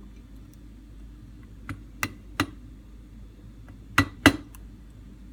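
Sharp metallic clicks and taps, five in all with the two loudest near the end, from a screwdriver pushing the power valve piston's flange down into its recess in a Rochester 2G carburetor's metal casting.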